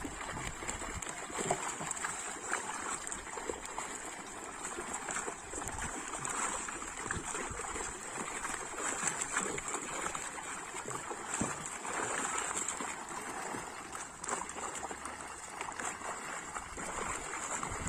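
Pond water splashing and trickling around a seine net as it is hauled in, with irregular small splashes from fish caught in the net, over a steady high-pitched hiss.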